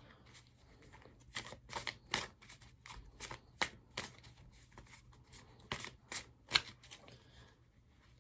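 A deck of tarot cards shuffled by hand: an irregular run of soft card slaps and flicks that thins out near the end.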